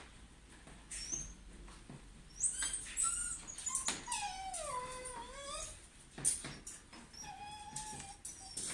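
Shiba Inu whining while left home alone: a few short high cries, then one long whine that dips in pitch and rises again, and a shorter whine near the end. Scattered short knocks sound between the cries.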